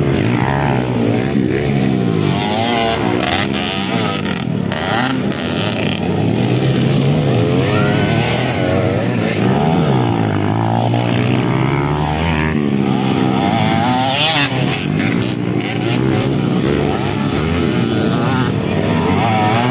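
Several motocross dirt bike engines revving and accelerating as the bikes ride past on a dirt track, their pitches rising and falling with each throttle change and overlapping throughout.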